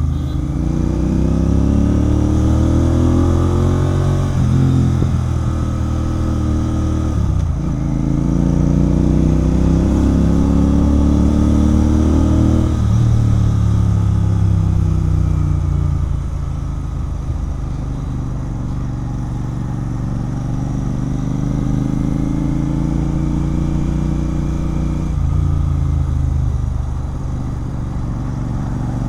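Royal Enfield Continental GT 650's 648 cc parallel-twin engine through a Red Rooster aftermarket exhaust, accelerating through the gears. The revs climb and drop sharply at upshifts about four, seven and thirteen seconds in, then the bike cruises at steadier revs, with another brief dip near the end.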